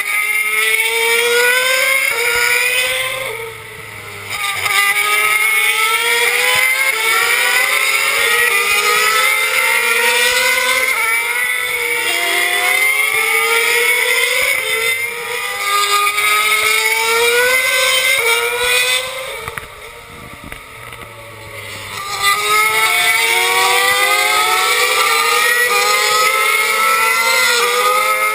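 Several race car engines accelerating hard and overlapping, each pitch climbing and dropping back at every upshift. The sound eases briefly about three seconds in and again around twenty seconds in.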